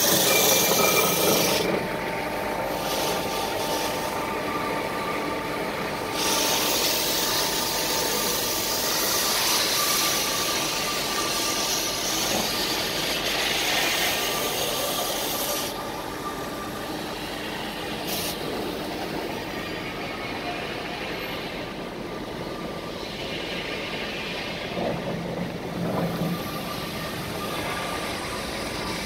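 Uzay 420 metal-cutting band saw running, its blade cutting through a thick-walled steel pipe: a steady machine noise with a hiss from the cut. The hiss drops away twice for several seconds.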